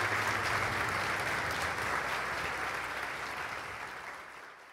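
Crowd applauding, the clapping fading gradually away toward the end.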